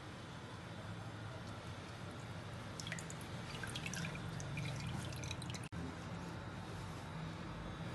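Water dripping and trickling from a flour-battered fish fillet lifted out of a bowl of cold water, splashing back into the bowl as a quick run of small drips about three seconds in. A low steady hum sits underneath.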